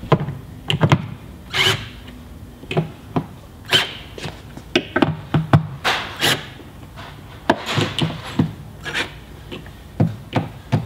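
Cordless drill snugging down the stainless screws that hold a jet ski sponson to the hull, in short irregular bursts with sharp clicks and knocks as each screw is tightened.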